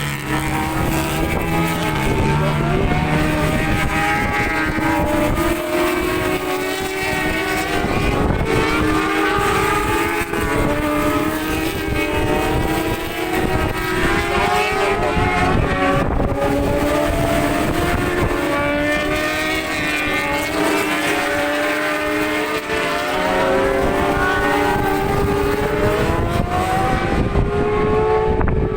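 Several racing motorcycle engines running hard, their pitches rising and falling and several engine notes overlapping. Wind buffets the microphone.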